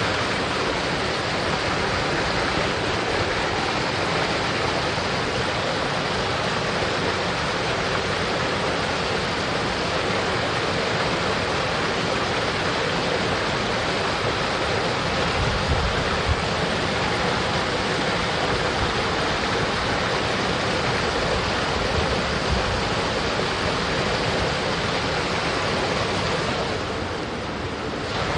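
Mountain stream rushing steadily over rocks, a constant flow of water that thins briefly near the end.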